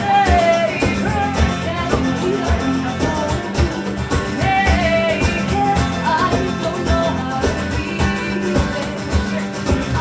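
Live band music: guitars played over a steady percussion beat, with a gliding melody line on top.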